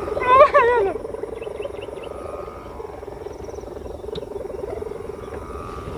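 Kite hummers (sendaren) on kites flying high, giving a steady bubbling, warbling drone, the 'boiling water' sound. A louder wavering tone swells up about half a second in and then fades back into the drone.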